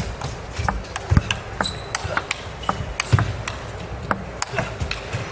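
Table tennis rally: the ball clicks sharply off the rackets and the table in quick alternation, several times a second. Low thuds are heard underneath some of the hits.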